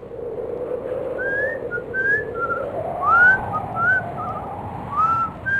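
A person whistling a tune in short, sliding notes that mostly rise, with a few quick warbles, over steady background noise.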